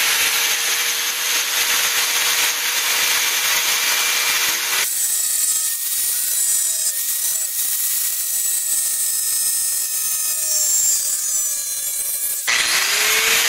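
Angle grinder with a cutoff wheel cutting thin 25-gauge sheet steel: a steady motor whine over a loud grinding hiss. The sound changes abruptly about five seconds in to a thinner, higher whine, and changes back near the end.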